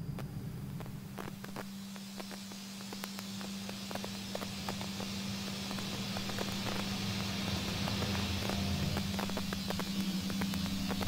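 A steady low hum with faint scattered clicks and a hiss that slowly grows louder.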